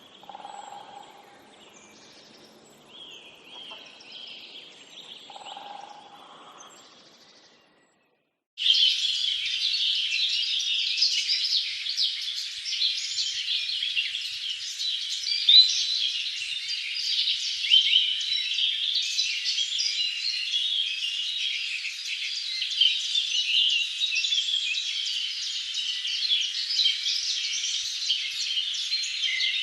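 Faint scattered bird calls, a short silence, then a dense chorus of many small birds chirping that starts abruptly about eight seconds in and continues without pause.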